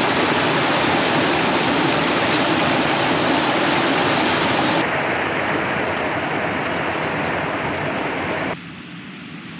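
Small moorland stream splashing down a little rock cascade, heard close up as a loud, even rush. The sound changes slightly about five seconds in, then drops abruptly to a much quieter rush near the end.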